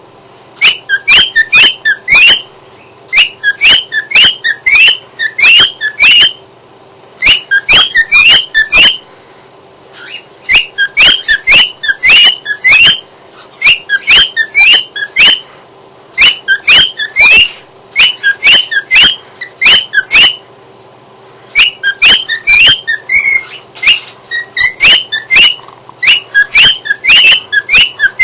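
Cockatiel singing: quick runs of short, chirpy whistled notes in phrases of one to two seconds, broken by brief pauses.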